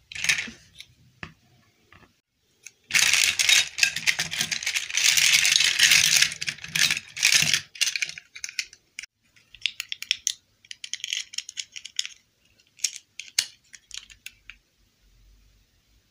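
Small plastic dolls and clip-on plastic dresses rattling and clicking against each other and a ceramic bowl as hands rummage through them. A dense run of clatter in the first half gives way to lighter, scattered clicks.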